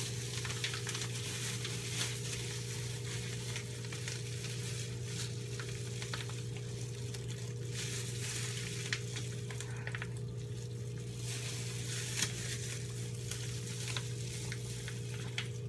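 A plastic bag crinkling and rustling as it is handled, with scattered small clicks, over a steady low hum and hiss.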